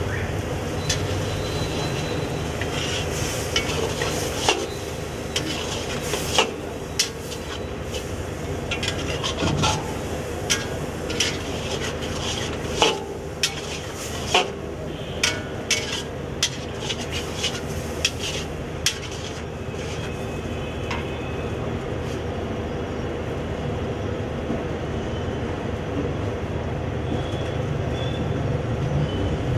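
Steel ladle scraping and clanking against a large iron kadai as chicken liver is stir-fried, with the pan sizzling. The clanks come thick and irregular through the first two-thirds and thin out near the end, over a steady low rumble.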